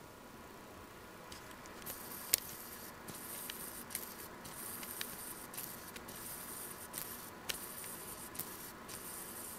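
Handling noise of a handheld camera being moved: faint rustling with a sharp click about two seconds in and several smaller clicks after, over a steady faint high whine.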